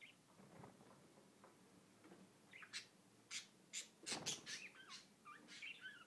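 Budgerigar chirping: a run of short, sharp chirps from about halfway through, followed by a few warbling chirps near the end.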